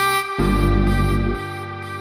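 Electronic background music: a bright keyboard chord at the start, then a heavy bass note about half a second in that drops away about a second later.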